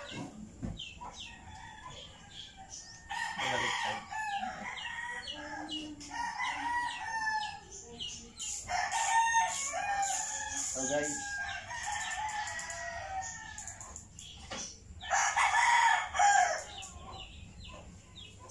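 Rooster crowing, three long crows several seconds apart, with shorter clucking calls between them.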